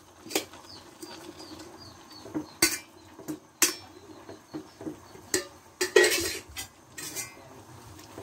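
Metal cookware clinking and knocking as a pot is tipped against a metal wok to add glass noodles (sotanghon). There are several sharp, separate clanks with short gaps, over a faint low hum.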